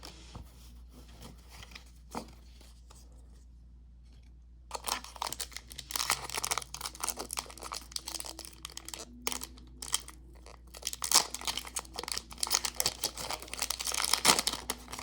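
Foil wrapper of a Pokémon booster pack being torn open and crinkled by hand, a dense crackling that starts about four and a half seconds in and goes on for about ten seconds, after a quiet stretch with one small click.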